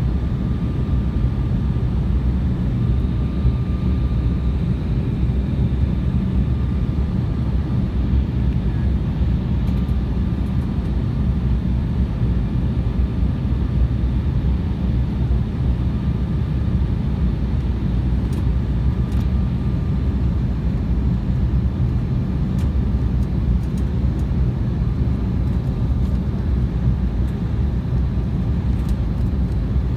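Steady airliner cabin noise: engine and airflow noise heard from inside the passenger cabin, a constant low rumble with faint steady whines above it.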